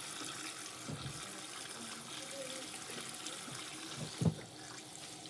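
Water running steadily into the tub of a Kuppet portable washing machine, filling it for a rinse, with one short low thump about four seconds in.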